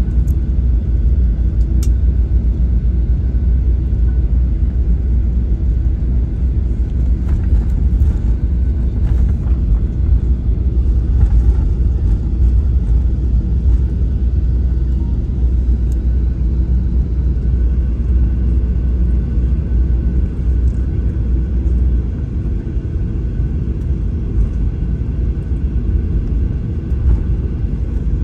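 Steady low rumble inside the cabin of a Boeing 737-700 taxiing after landing, from its CFM56-7B jet engines and the airframe. A few faint steady tones run through it, and the deepest part of the rumble drops away about three-quarters of the way through.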